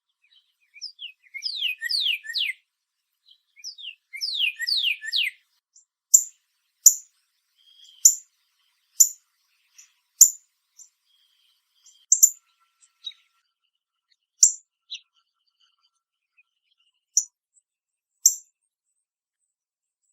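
Northern cardinal singing two quick series of slurred whistles that sweep down in pitch, then giving a string of short, sharp, high, metallic chip calls spaced about a second apart.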